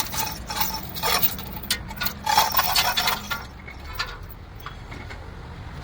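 Metal tools and parts clinking and knocking in quick irregular taps, some ringing briefly, over a low steady rumble; the taps thin out about three and a half seconds in.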